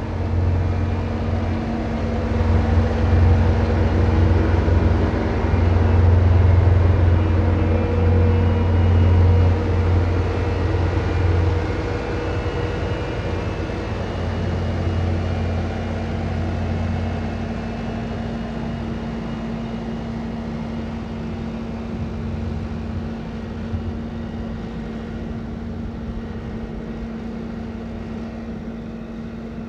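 Tractor engine running with a heavy, steady low rumble. It is loudest over the first dozen seconds, then grows gradually quieter.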